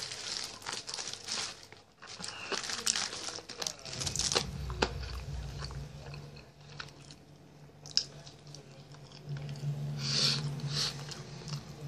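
Close-up eating of a grilled chicken drumstick: biting and chewing, with crunching and tearing of the skin and meat off the bone in irregular bursts. A low steady hum comes in about four seconds in.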